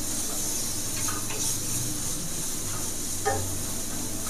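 Capsicum, onion and chicken frying in a pan with a steady sizzle while being stirred. A spoon knocks lightly against the pan a few times.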